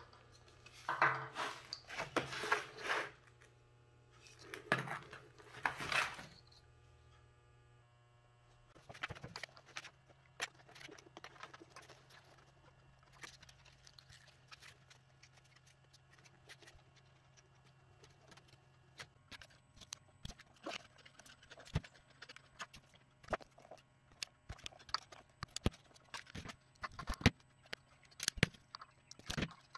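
Hands handling and pulling apart a motorcycle instrument-cluster wiring harness. There are two rustling bursts in the first six seconds, then many small irregular clicks and ticks of wires and plastic sheathing that grow busier toward the end. A faint steady hum runs underneath.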